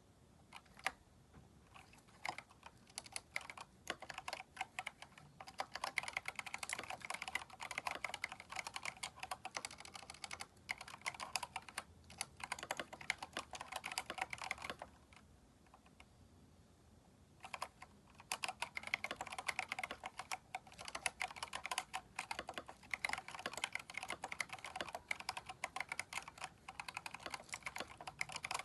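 Keychron K4 mechanical keyboard fitted with replacement keycaps, being typed on in fast runs of keystrokes. The typing starts with a few scattered keystrokes, stops for a couple of seconds past the middle, then picks up again.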